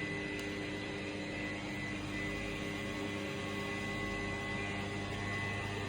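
Crankshaft balancing machine spinning a Honda B20B crankshaft with its flywheel, clutch cover and pulley at 400 RPM, a steady even hum with a faint high tone. This is the initial spin that measures how far the assembly is out of balance.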